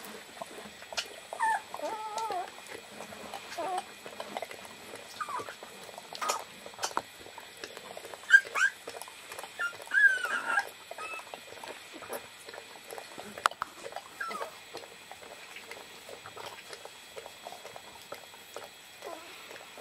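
Young puppy whining and squeaking in short, high, wavering calls, several times over, the loudest about eight and ten seconds in, with soft scratching and rustling on its bedding between the calls.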